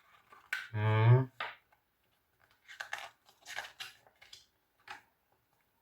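Paper rustling: a run of short, crisp rustles as the pages of a small photo booklet are handled and turned, starting a few seconds in, after a brief spoken word about a second in.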